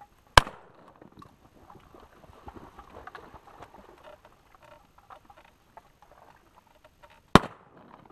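Two shotgun blasts about seven seconds apart, fired at incoming mallards, with faint duck calls and scattered small sounds between them.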